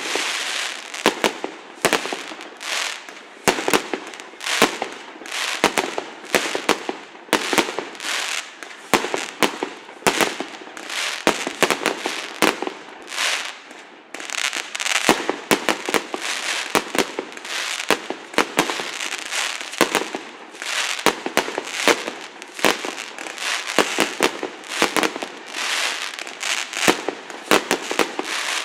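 Fireworks display: a dense, rapid run of sharp bangs and crackling that keeps going with only brief lulls.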